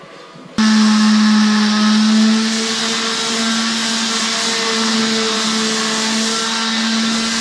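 Electric palm sander running against the fibreglass (GRP) hull of a rigid inflatable boat. It starts abruptly about half a second in, then runs steadily with a strong hum under a loud sanding hiss.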